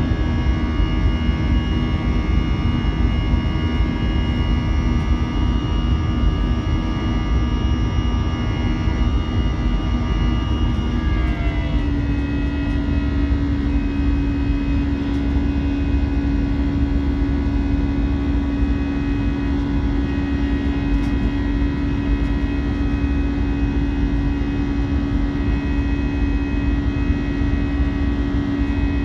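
Airbus A320 jet engines and rushing air heard from inside the cabin during the climb after takeoff: a steady drone with a high whine that slides down and fades about eleven seconds in, leaving a steady low hum, as the engines are throttled back from takeoff to climb power.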